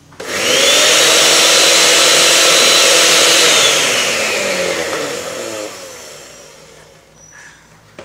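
Osterizer blender motor starting the moment it is plugged in, quickly spinning up, running steadily for about three seconds, then winding down with a falling pitch once it is unplugged. It switches on by itself because the contact strips inside its push-button keypad are stuck together, so the buttons cannot turn it off.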